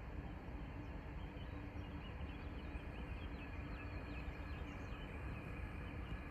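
Railway station ambience: a steady low rumble with a constant hum. From about two seconds in until near the end, small birds chirp in quick, short calls.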